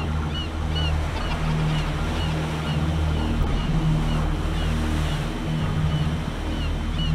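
Film soundtrack: a low, sustained synth drone with a slow pulsing bass, and a short high chirping figure repeating about twice a second, over a steady wash like waves.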